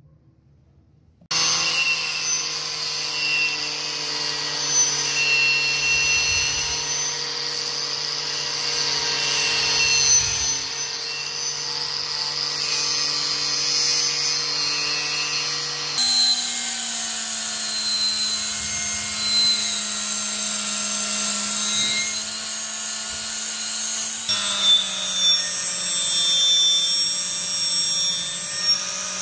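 Angle grinder with a wire brush wheel running against a rusty steel dagger blade, scrubbing off the rust. It starts about a second in with a steady motor whine over a scraping rasp, and the pitch shifts twice.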